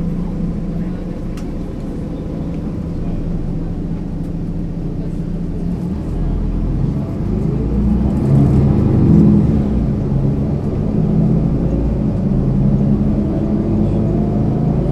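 Mercedes-Benz Citaro C2 city bus diesel engine, running steadily at first. About six seconds in it grows louder and climbs in pitch as the bus accelerates, and it rises again near the end.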